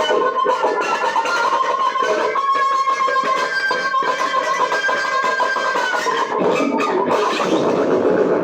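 Guitar music with held, ringing notes, stopping abruptly at the very end.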